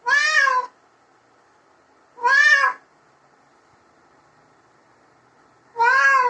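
Domestic cat meowing three times, each meow about half a second long, rising and then falling in pitch.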